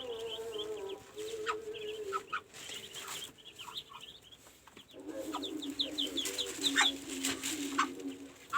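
A brood of ducklings peeping in short high chirps, over a mother duck's long, low calls that come in two spells: at the start and again from about five seconds in.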